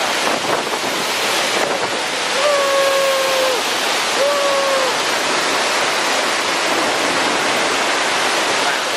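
Steady rush of a waterfall: loud, even falling-water noise.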